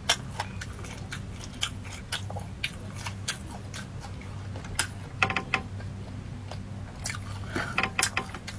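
Biting into and chewing a pork sausage close to the microphone: scattered sharp clicks and snaps of teeth and casing, with busier runs about five seconds in and again near the end.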